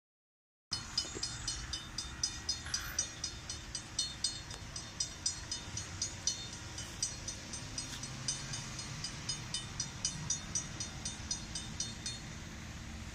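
Railroad crossing warning bell ringing in quick regular strikes, about three a second, the warning that a train is approaching. It starts just under a second in and stops about twelve seconds in.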